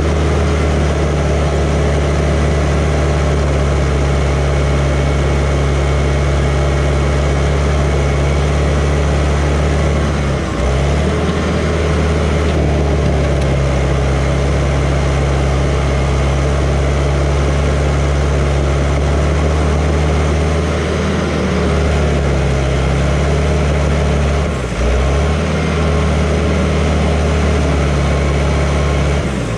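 John Deere 450H crawler dozer's diesel engine running steadily under load while pushing material, its low note dipping briefly twice, about ten seconds in and again a few seconds before the end.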